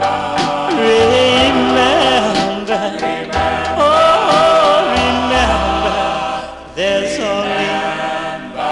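1950s doo-wop vocal group record: several voices singing in close harmony over held low bass notes.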